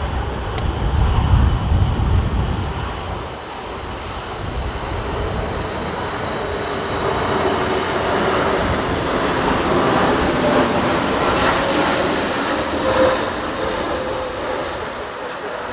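Boeing 747 freighter's four jet engines passing on a crosswind landing approach: a rushing roar with a slowly falling whine builds to its loudest about ten to thirteen seconds in, then eases. Heavy wind rumble on the microphone at the start.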